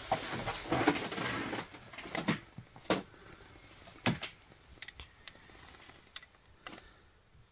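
Hand tools and engine parts being handled during a spark plug change: a scraping rustle, then a few sharp metallic clicks and lighter ticks.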